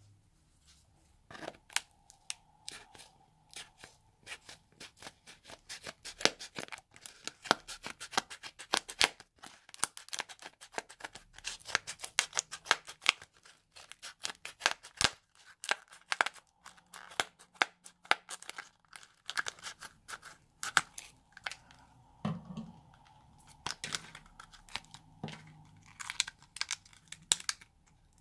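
Scissors cutting open a clear plastic blister pack: a long run of quick, sharp snips and crackles of stiff plastic.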